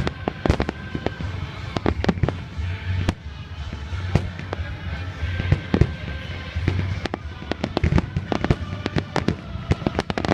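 Aerial fireworks bursting in rapid, irregular succession, with many sharp bangs and crackles that come thicker near the end.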